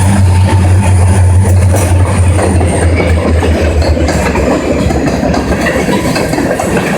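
A train passing: a diesel locomotive's steady engine drone fades out about three seconds in, and the rail cars following it roll by with a rumble of wheels on the track.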